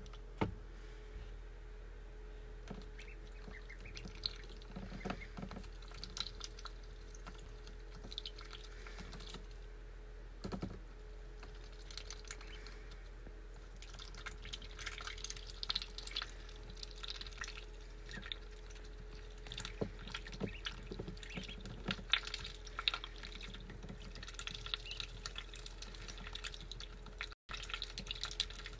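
Ducklings dabbling in a small water dish: faint wet splashes and slurps with quick taps of their bills against the dish, coming in irregular clusters that grow busier about halfway through.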